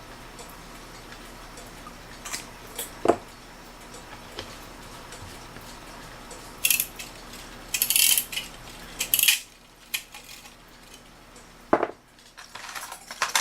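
Small metal clock parts, likely the loose winding keys, clinking and rattling as they are handled, with a few sharp clicks and a burst of clattering in the middle.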